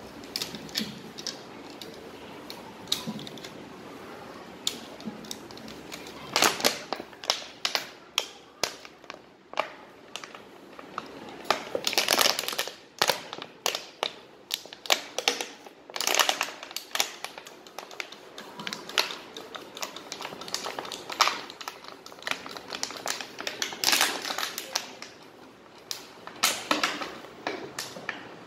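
Thin plastic water bottle and a sheet of paper crinkling and crackling in the hands: irregular sharp clicks, sparse at first and coming thick and in clusters from about six seconds in.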